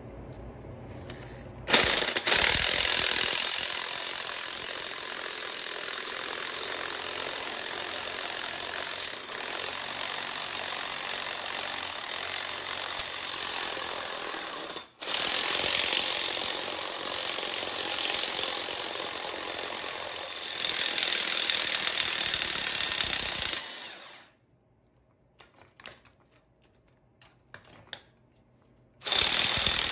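Corded electric impact wrench hammering on the threaded rod of a coil spring compressor, compressing a strut's coil spring. It runs in one long burst of about twenty seconds with a brief stop partway, falls silent apart from a few small clicks, then starts again near the end.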